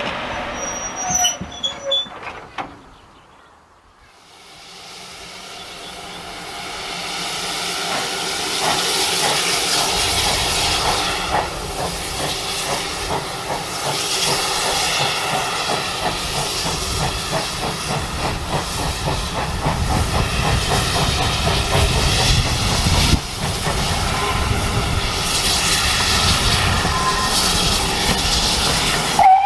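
Railway coaches rolling past with wheel clatter, then, after a short quiet gap, a steam train approaching. Steam hisses over the rumble and regular clicking of the wheels, building up over several seconds and staying loud.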